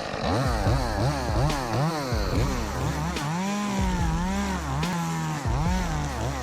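Two-stroke chainsaw engine revving up and down in quick repeated throttle blips, about two or three a second, then held at higher revs with a wavering pitch through the second half.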